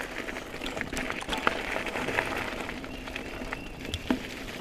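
Crunching and rustling of movement over leaf litter and dirt on a wooded trail, full of small clicks, with a few louder sharp knocks: at about a second and a half, just past two seconds and near the end.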